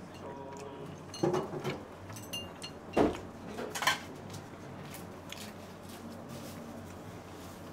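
A spoon knocking and scraping against a rice bowl while eating, with a few sharp clinks, the loudest about three seconds in, over a low room murmur.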